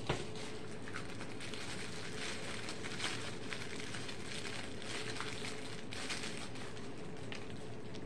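A sharp knock at the start, then faint crackly handling noises over a steady hiss: a plastic tie-dye dye bottle being handled in gloved hands.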